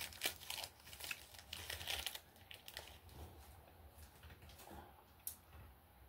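Faint crinkling of a food wrapper being handled: a run of light crackles and clicks over the first two seconds or so that thins out, with one sharper click about five seconds in.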